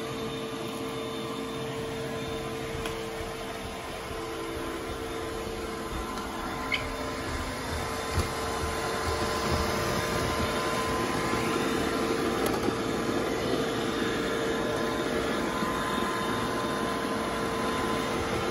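iRobot Roomba i7 robot vacuum running across a hardwood floor: a steady mechanical hum with a held whine, growing louder about eight seconds in as it comes close.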